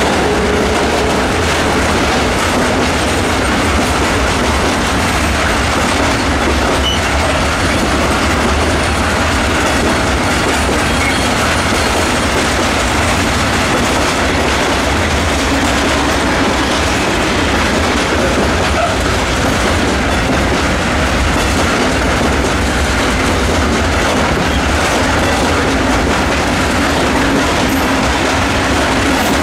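Freight train of tank wagons rolling past: a steady, loud run of steel wheels on the rails.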